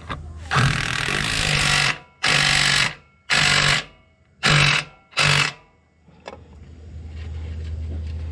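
Impact wrench (rattle gun) tightening a gearbox-to-engine bolt through an extension, hammering in five bursts: one long run of about a second and a half, then four short blips.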